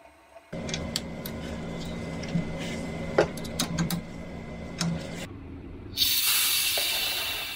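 Light clicks and knocks of hand work at a front brake caliper's bleed nipple over a steady hum. About 6 s in comes a loud hiss of air venting from a hand-pumped pressure brake bleeder on the master cylinder reservoir, slowly fading.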